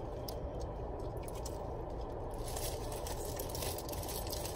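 Faint chewing and the crinkling of a foil burger wrapper, with scattered small clicks, over a steady low hum.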